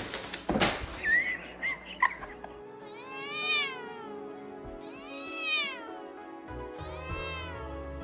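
A domestic cat meowing: three drawn-out meows, each rising then falling in pitch and lasting about a second, spaced about two seconds apart and starting about three seconds in. A few sharp knocks come in the first second.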